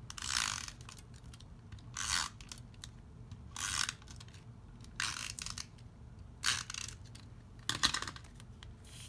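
Paper and card being handled in crafting: six short rasping strokes, about one every second and a half.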